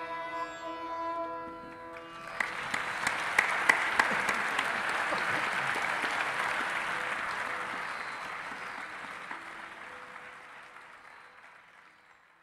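Sarangis hold a final sustained phrase over a drone, which ends about two seconds in. Audience applause then breaks out and slowly fades away.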